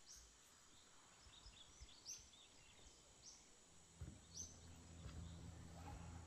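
Faint bird calls: a short, high call that drops in pitch, repeated about once a second, with softer chirps between, over quiet outdoor ambience. A low steady hum comes in about four seconds in.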